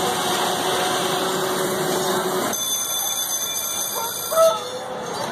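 Carnival water-gun race game in play: a steady hiss of water jets with thin electronic tones over it, changing about two and a half seconds in. Near the end a short, loud single tone sounds.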